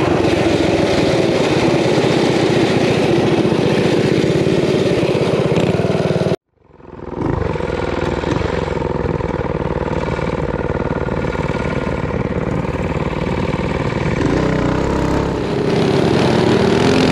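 Small single-cylinder mini bike engines running at speed, heard from on board the riding bike. The sound cuts out for a moment about six seconds in and fades back, and the engine note climbs near the end.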